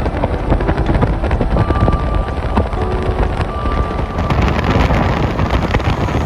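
Steady rush of heavy rain with a low rumble under it.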